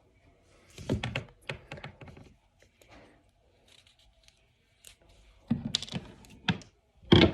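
Hard plastic toy packaging being handled and pulled at while action-figure accessories are freed from it: two clusters of quick clicks and crinkles, then a louder clatter near the end.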